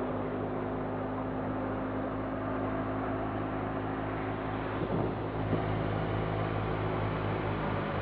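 Wheat thresher driven by a Fiat 480 tractor, running steadily while threshing: a constant mechanical hum with a rushing blower noise. A brief knock about five seconds in.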